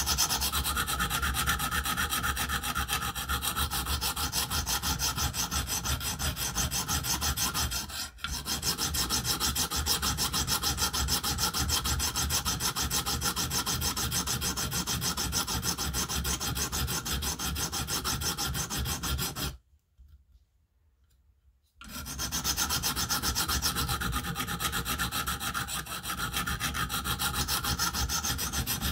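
Sharpening stone on a KME guided sharpening system rubbing back and forth along an M390 steel knife edge in quick, steady strokes, grinding out a chip in the edge. The strokes pause briefly about eight seconds in and stop for about two seconds past the middle before resuming.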